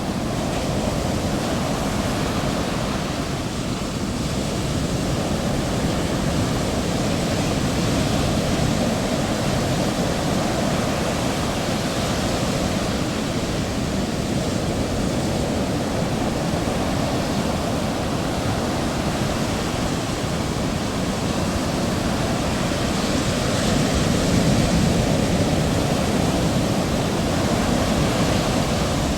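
Heavy ocean waves breaking and washing in a continuous rush of surf, swelling louder about two thirds of the way through.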